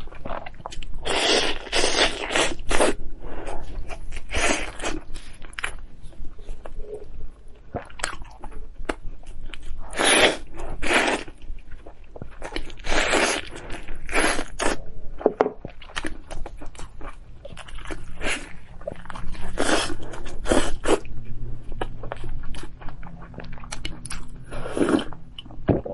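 Close-miked eating: biting into and chewing the meat off a braised drumstick, in clusters of loud mouth sounds with quieter gaps between. Near the end, a sip from a mug of tea.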